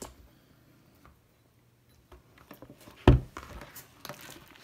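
Mostly quiet handling noise, then a single dull thump about three seconds in, followed by a few soft clicks and light squishy sounds.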